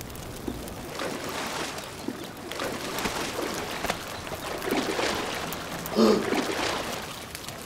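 Water sloshing and dripping as a creature climbs out of a lake onto the side of a canoe, in swells. A short vocal noise about six seconds in is the loudest moment.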